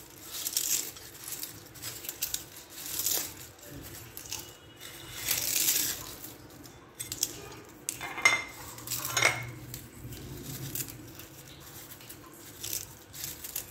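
Crisp fried samosa pastry strips crunching and rustling as they are broken up by hand and scattered into a glass baking dish. Two short, ringing clinks a little past the middle.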